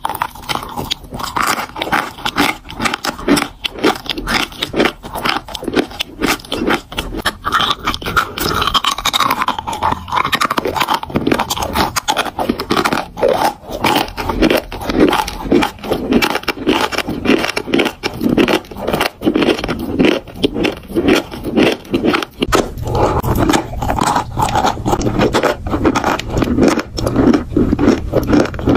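Close-miked biting and chewing of dry eating chalk: dense, crisp crunching and gritty scraping as the chalk breaks up between the teeth.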